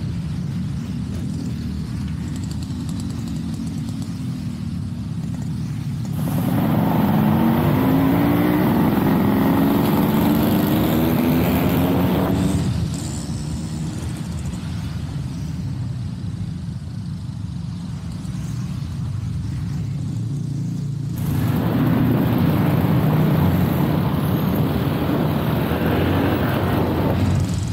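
Honda PCX 150 scooter's single-cylinder engine running at low speed in traffic, with road and wind noise. About six seconds in and again near the end it gets louder and rises in pitch as the scooter accelerates.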